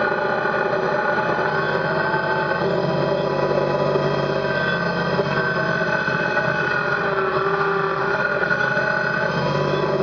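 Kubota BX subcompact tractor's three-cylinder diesel engine running steadily while the tractor stands still, heard from the operator's seat.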